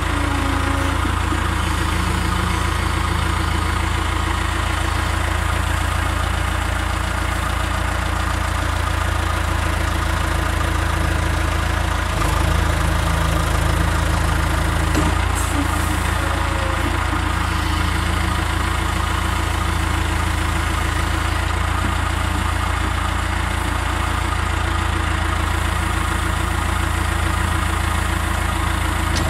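Backhoe loader's diesel engine running steadily, its note shifting slightly about twelve and fifteen seconds in.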